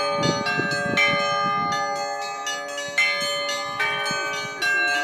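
Church bells ringing a peal: several bells of different pitch struck in turn, roughly one stroke a second, each tone ringing on under the next.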